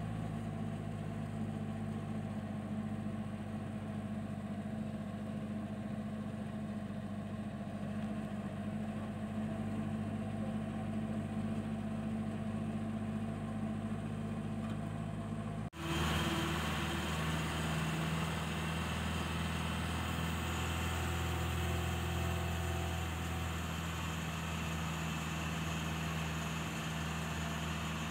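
Jeep's engine running steadily while driving, heard from on board. About halfway through the sound cuts abruptly to another stretch of driving, where the engine note changes and there is more hiss from road and wind.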